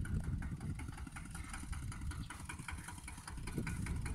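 Single-cylinder diesel engine of a two-wheel walking tractor running steadily with an even chugging beat while it pulls a tiller through dry soil.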